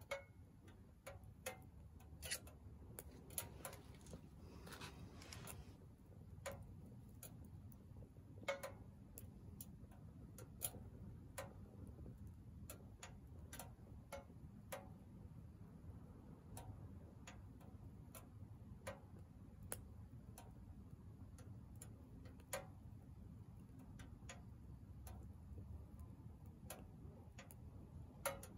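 Firewood crackling and popping as it burns in a small Soomloom MECA steel wood stove: irregular sharp pops over a soft low rumble.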